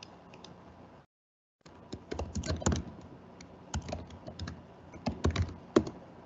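Computer keyboard typing: irregular clicks of keys, starting about two seconds in, picked up by a video-call microphone.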